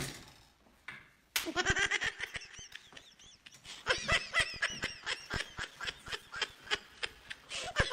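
A man laughing hard, a rapid run of high, pitched laughs that starts about a second and a half in and keeps going.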